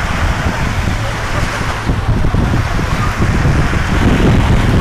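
Wind rumbling on the microphone, with the wash of sea surf.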